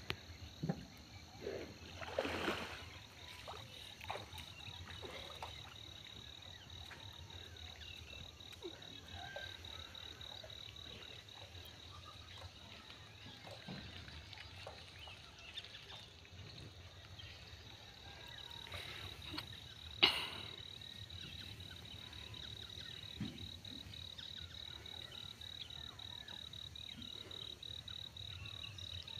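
Frogs calling faintly, over a steady high-pitched trill, with a single sharp click about twenty seconds in.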